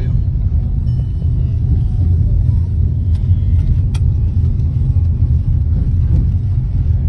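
Steady low rumble of a car driving, heard from inside the cabin, with a couple of faint clicks near the middle.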